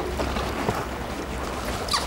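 Wind and sea-water noise around a small inflatable boat, with water splashing where a large black marlin is held against the side, over a steady low hum. A short high sound sweeps downward near the end.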